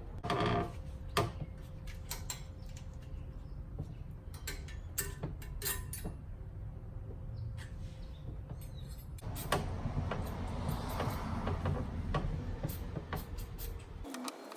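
Metal tools and brake parts clicking and knocking, then from about nine seconds in a steady hiss of aerosol brake cleaner being sprayed for about five seconds, cut off suddenly near the end.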